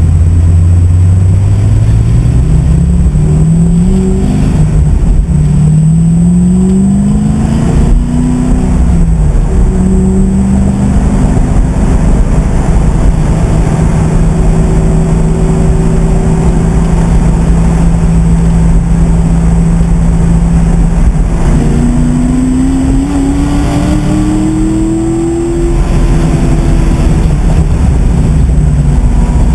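2009 Corvette Z06's 7.0-litre V8, heard from inside the cabin, accelerating hard through the gears. Its pitch climbs and drops back three times in the first eight seconds, holds a steady drone for about ten seconds, climbs again, then falls away near the end as the throttle is lifted, over a steady rush of road and wind noise.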